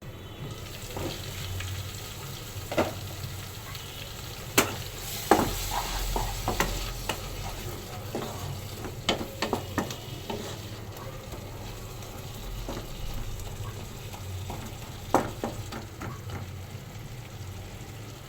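Spice paste of onion, tomato and ground spices sizzling in a pan as it is stirred and fried down (the kosha stage of a masala), with scattered sharp clicks of the spatula against the pan.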